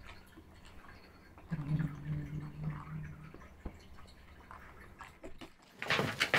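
Kitten growling low and steadily for about two seconds, starting about a second and a half in, while guarding a toy mouse from the other cats. A short loud burst of noise comes near the end.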